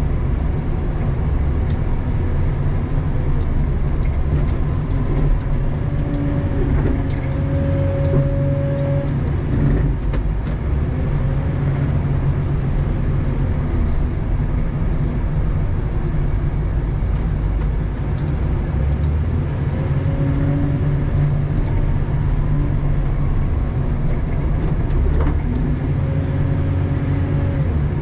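Doosan DL250 wheel loader's diesel engine running steadily under load while plowing snow, heard from inside the cab. A higher whine rises in several times for a second or two.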